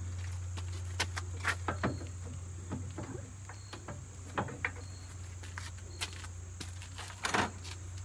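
A few light metallic clinks and knocks at irregular intervals, about eight of them, over a steady low hum, as metal parts are handled by hand around the engine.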